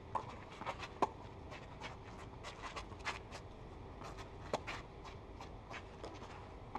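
Tennis balls struck by rackets in a rally on a clay court: sharp pocks, the loudest near the start, about a second in and about four and a half seconds in, with fainter ticks between.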